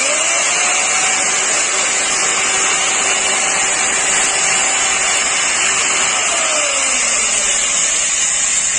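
Electric chainsaw switched on and running without cutting: a loud, steady motor whine with chain noise, starting suddenly at the very start. About six seconds in, the motor's pitch begins to fall.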